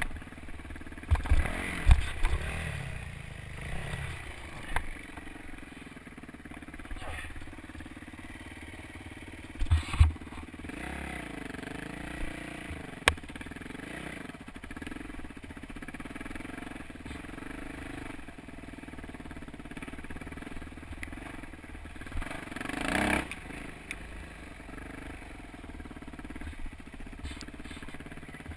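Yamaha YZ426F four-stroke single-cylinder dirt bike engine running at low revs, its pitch rising and falling with the throttle. Several knocks and thumps come through, loudest about a second and ten seconds in, and there is a brief louder burst about 23 seconds in.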